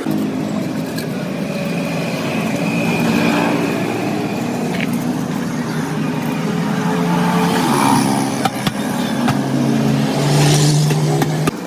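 A motor or engine running steadily, its pitch shifting a little, with a stronger steady hum near the end.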